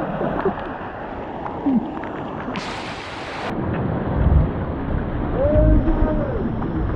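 Rushing, splashing water of a water-park tube channel heard close on a camera, with a brief hiss of spray about two and a half seconds in and low rumbling thumps around four and six seconds. A short voice cries out near six seconds.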